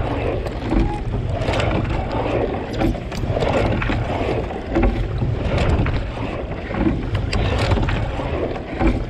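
Single racing scull underway at race pace: the oar blades splash into and out of the water with each stroke, about every second and a half, over water rushing past the hull and wind rumbling on the microphone.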